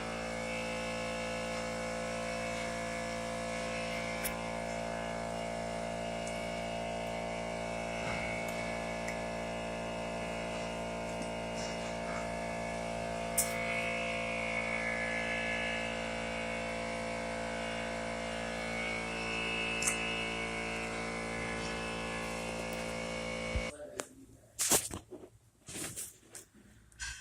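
Electric air compressor running with a steady hum, then shutting off abruptly about 24 seconds in once it is done. A few knocks and clinks follow.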